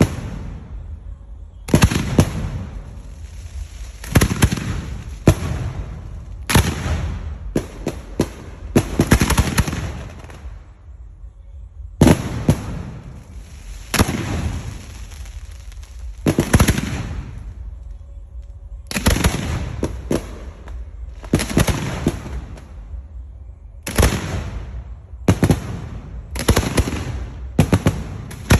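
Fireworks going off in a display: sharp bangs every second or two, each trailing off in a fading echo, some coming in quick crackling clusters.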